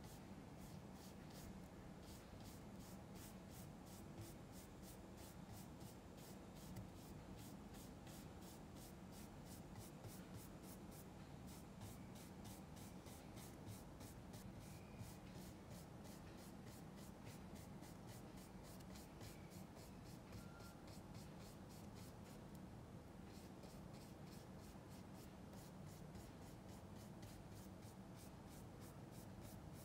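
Faint scratching of a bristle brush working oil paint across a canvas, stroke after stroke.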